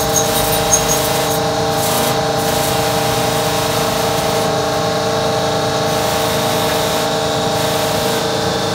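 Stick arc welding on steel: the arc hisses and crackles steadily, with a few sharp pops in the first second and a steady hum underneath.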